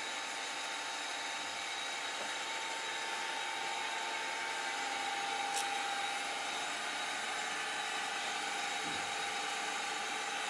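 Schutte WU 400 CNC 4 grinding machine running steadily just after being switched on from its control panel, with a steady whine over a mechanical hum. The whine sags slightly in pitch, and there is a single click about five and a half seconds in.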